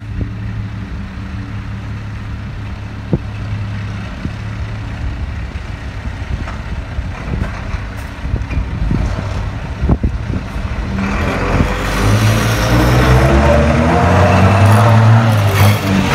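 Renault Premium 370 truck's diesel engine running as the lorry pulls away and drives up close, growing markedly louder about three-quarters of the way through, with a few short sharp clicks along the way.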